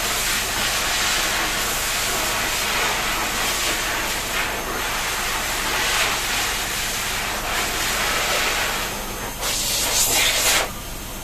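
Water spraying from a shower head or sprayer in a steady hiss, which cuts off about ten and a half seconds in.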